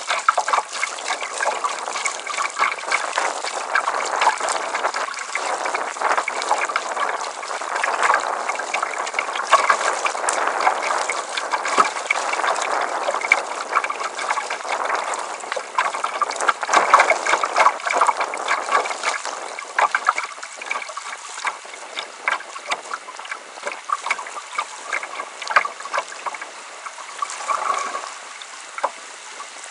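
Water splashing and lapping against the bow of a wooden kayak moving through choppy river water, in many short irregular splashes. The splashing eases off in the last ten seconds or so.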